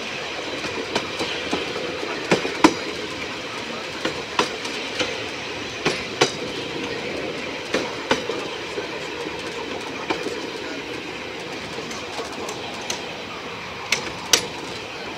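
Railway carriage wheels rolling slowly over jointed track. A steady rumble is broken every couple of seconds by sharp clicks, often in pairs, as the wheels cross the rail joints.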